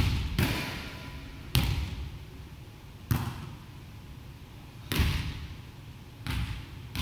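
Volleyball impacts, the ball being struck and hitting the wooden floor. There are about five sharp smacks at uneven intervals, each followed by a long echo in the large gymnasium.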